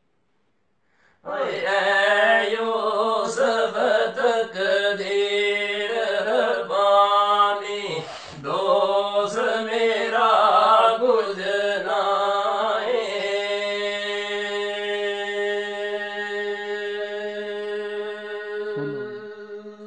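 Male voices singing Pahari kalam, a devotional folk poem, in a chanting style. After a brief silent gap the singing runs through ornamented phrases, then settles on one long held note from about two-thirds of the way in until near the end.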